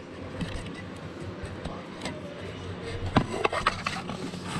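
Kitchen handling noise: a low steady hum with a few scattered knocks, and a quick run of knocks and clinks about three seconds in.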